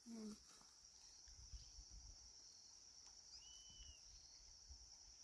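Near silence: a faint steady high-pitched insect chirring in the background, with one short arched whistled note about three and a half seconds in.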